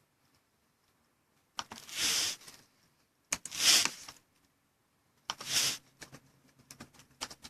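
Three short bursts of rustling, hissy noise about a second apart, then a run of small clicks and taps near the end.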